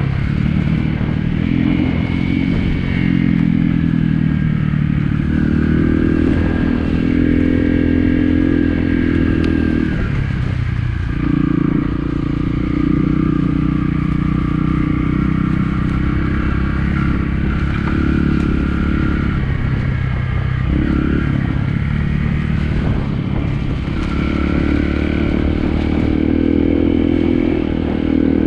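Trail motorcycle engine under load on a hill climb, its pitch rising and falling with the throttle, easing off briefly about a third of the way in and again about two-thirds of the way in before pulling again.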